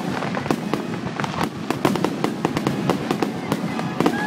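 Fireworks finale: aerial shells going off in a dense, rapid run of sharp bangs, many to the second.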